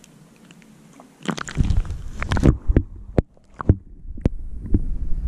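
Water splashing and gurgling around a submerged action camera as a perch is eased back under the lake surface. About a second in, low rumbling and sloshing starts, with sharp underwater clicks and knocks after it.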